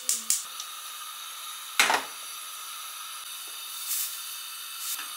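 Kitchen sounds while cooking: a few quick metallic clinks of utensils on cookware at the start, then a steady hiss with one sharp knock about two seconds in and two softer knocks later.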